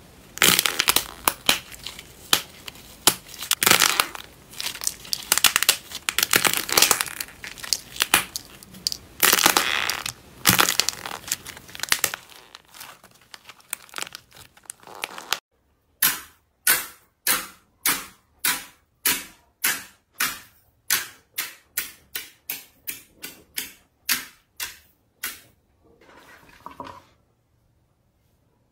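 Slime being squeezed and pressed close to the microphone, with dense crunchy crackling. About halfway through it cuts to a run of separate sharp pops, roughly two a second and quickening.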